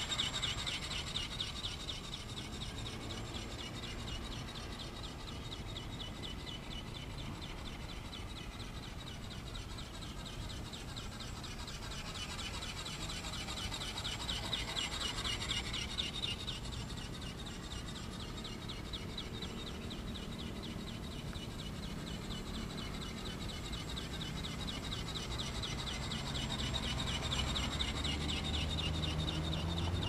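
Electric motor and flapping gearbox of a radio-controlled ornithopter seagull whirring with a fine, rapid buzz as it flies overhead, the sound shifting slowly as it moves away and back. Low wind rumble on the microphone grows near the end.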